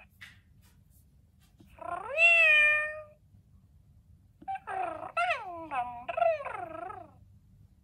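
FurReal North the Sabertooth Kitty interactive plush toy playing electronic kitten sounds in response to its head being petted. There is one drawn-out meow that rises and then holds about two seconds in, then, after a short pause, a run of shorter mews that fall in pitch.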